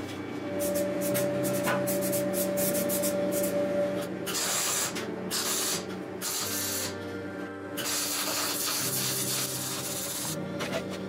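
MIG welding arc on steel, crackling and hissing in several short bursts from about four seconds in, over background music.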